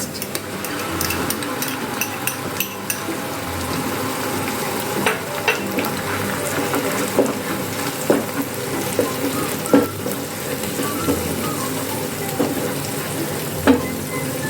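Chopped onions and onion-garlic paste frying in hot oil, a steady sizzle, while a spatula stirs them and knocks against the pan every second or two.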